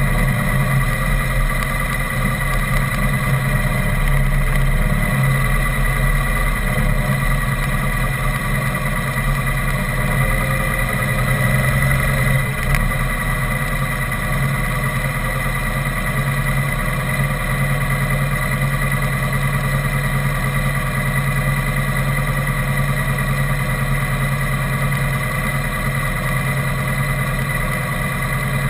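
Motor vehicle engine running steadily at low speed, with a steady whine over it.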